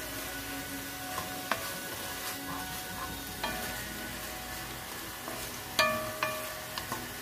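Mushrooms and cherry tomatoes sizzling in a hot pot while a wooden spoon stirs them. The spoon knocks against the pot several times, the loudest a ringing clank about six seconds in.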